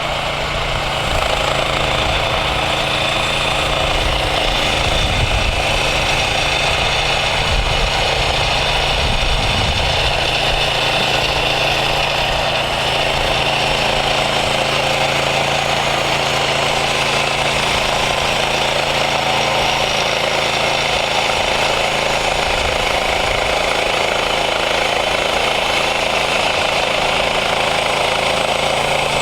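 Gasoline engine of a Woodland Mills portable bandsaw sawmill running steadily at a constant speed.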